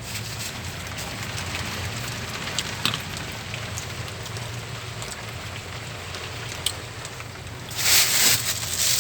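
Heavy rain from a rainstorm, a steady hiss with scattered sharp drop hits, over a low steady hum. The rush grows louder for about a second near the end.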